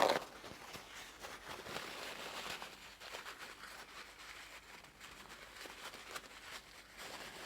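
A sharp knock, then faint, uneven rubbing and handling noise of greasy engine parts being wiped and moved about on a workbench.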